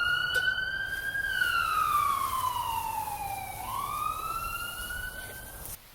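Emergency vehicle siren wailing: a slow rise, a long fall and another rise in pitch, cutting off suddenly near the end.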